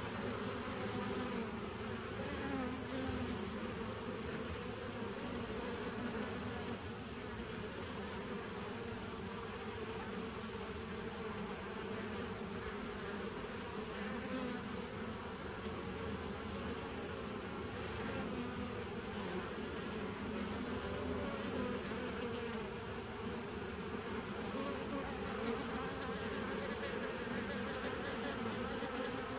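Honey bees buzzing as they fly in and out of the entrance of a nuc hive: a steady, continuous hum of many wings.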